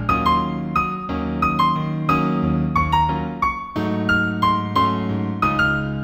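New Age piano piece in D minor: a slow melody picked out about two or three notes a second over held low chords.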